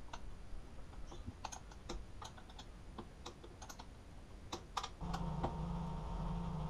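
Irregular light metallic clicks and taps of a hand tool and parts being handled on a motorcycle's handlebar and top clamp. About five seconds in, a steady low machine hum starts up.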